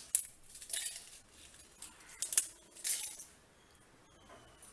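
Dried red chillies being broken and dropped into an empty stainless steel mixer-grinder jar: a handful of light clicks and clinks against the steel over the first three seconds.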